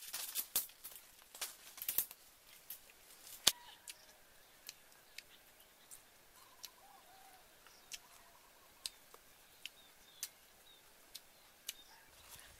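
Sharp crackles and clicks of dry leaves and twigs being handled, coming thick for the first few seconds, then as single clicks about once a second. Faint short bird chirps sound in the middle.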